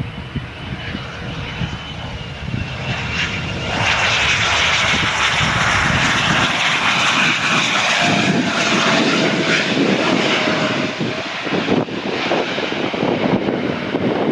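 Dassault Falcon 2000 twin-turbofan business jet landing: a high engine whine on approach, then loud jet noise from about four seconds in as it passes close by, its pitch dropping slightly as it goes past and rolls out down the runway.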